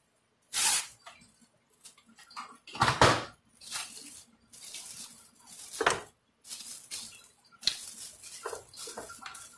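Plastic cling wrap being pulled, stretched over a bowl and pressed around its rim, crinkling and rustling in irregular bursts, loudest about three seconds in.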